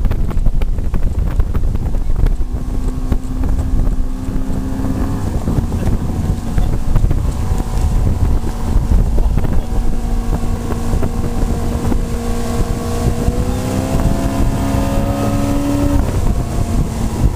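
Outboard motor running at speed, with heavy wind buffeting on the microphone and the wake rushing. The engine note rises a little about three-quarters of the way through and drops back near the end.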